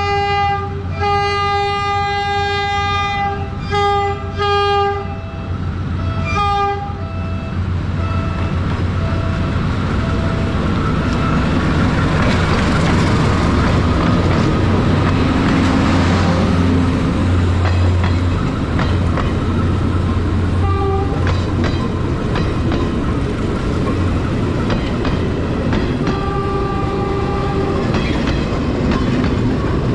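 Philippine National Railways diesel-hauled train sounding its multi-note horn in several long and short blasts as it approaches, then passing close with a low engine rumble and wheels clacking over the rail joints as the coaches go by. Short horn blasts sound again about two-thirds of the way through and near the end.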